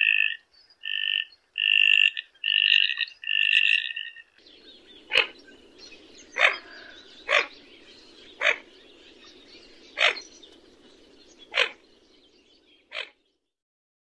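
Common goldeneye calling. First comes a quick series of short, clear two-note calls. Then, over a steady background rush, about seven short, sharp calls come roughly a second apart.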